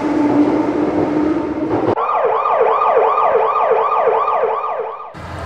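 A steady low hum with a rushing rumble, as of a train running, for about two seconds, then an emergency-vehicle siren sweeping rapidly up and down, about three sweeps a second, cutting off abruptly about five seconds in.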